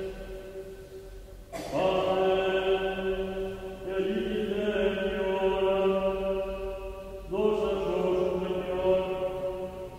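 Slow chanted vocal music with long held notes, moving to a new pitch about every three seconds.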